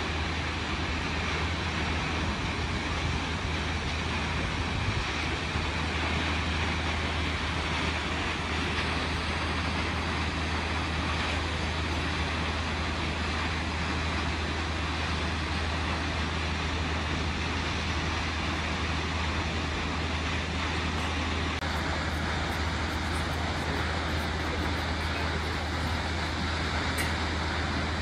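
Kegon Falls' steady rushing roar: a tall waterfall plunging into its gorge, an even wash of falling-water noise with a low rumble underneath.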